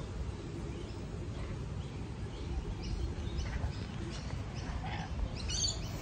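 Scattered short bird chirps, sparse at first and more frequent in the second half, with a brighter cluster of calls about five and a half seconds in, over a steady low rumble.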